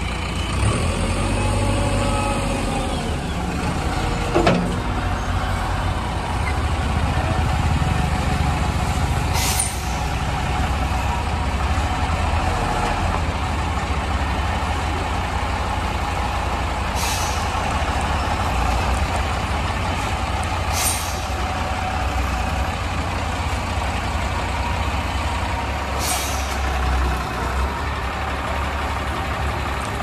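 Diesel engine of a Tata tipper truck running steadily as it pulls in and manoeuvres at close range. Four short, sharp air-brake hisses are spread through the passage.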